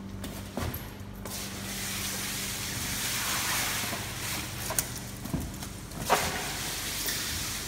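Steady hiss under a low machine hum, with a few sharp knocks toward the end, the loudest about six seconds in.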